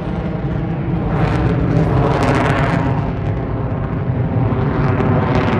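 Single-engine F-35A fighter jet with a Pratt & Whitney F135 turbofan, flying past overhead at demonstration power. The jet noise is loud and continuous, with a crackling edge. It swells about two seconds in and again near the end.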